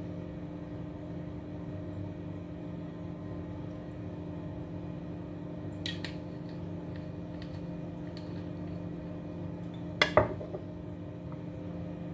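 A glass vinegar bottle being handled and capped, with small clicks and ticks, then one sharp glassy knock about ten seconds in as it is set down on the counter. A steady low hum sits underneath.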